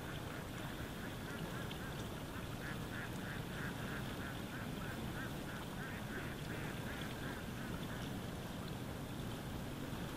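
Duck quacking in a fast, even series of about two to three quacks a second that dies away near the end, over a steady low rumble.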